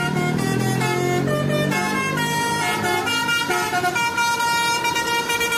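Multi-tone musical air horn on a red Jetbus coach, the Indonesian 'telolet' kind, playing a tune: several notes sound together and step to new pitches every half second or so.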